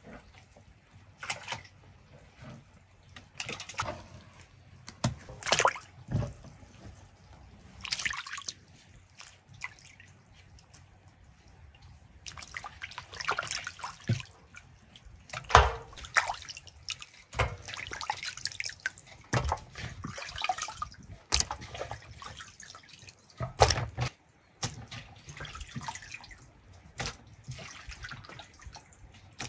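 Hands rinsing small whole fish in a metal basin of water: irregular splashing and sloshing, and water dripping off the fish as they are lifted out, with a couple of sharper, louder knocks.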